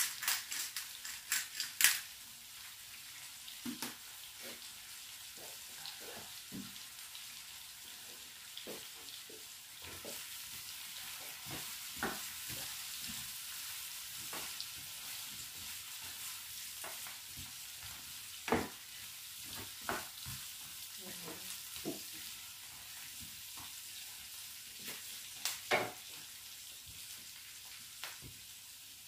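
Carrots and onion sizzling in oil in a frying pan: a steady high hiss. Scattered clicks and knocks of a spatula stirring in the pan, the loudest in the first two seconds and a few more later.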